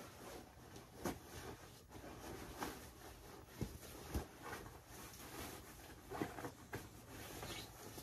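Rustling of fabric as pillows are handled and worked into pillow shams, with several soft bumps and pats scattered through.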